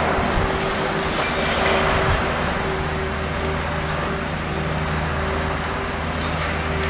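A heavy iron-ore truck-and-trailer combination driving away at low speed, engine and tyres running steadily, over a constant machinery hum.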